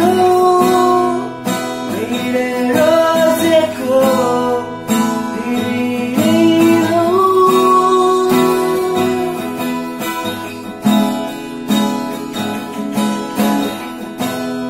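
Young man singing with long held notes over his own strummed acoustic guitar; the voice stops about two-thirds of the way through and the guitar strumming carries on alone.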